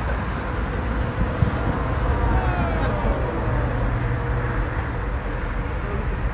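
Steady outdoor din of a crowd: a low rumble with voices mixed in. A short falling tone sounds about two and a half seconds in.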